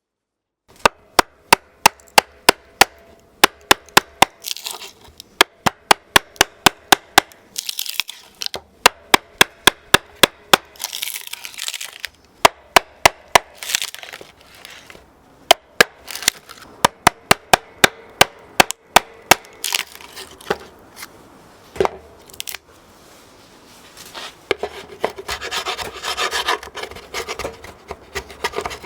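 Workshop hand-tool work: a long series of sharp clicks or taps, about two or three a second, with short bouts of scraping or rubbing in between.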